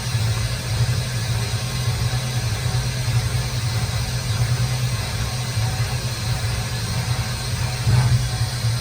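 CNC machine running while drilling aluminium with a carbide drill: a steady low hum under an even hiss, swelling slightly near the end.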